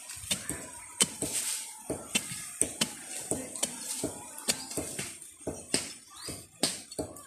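A short hand digging tool struck again and again into dry soil, roots and leaf litter while a hole is dug, in irregular knocks about two a second.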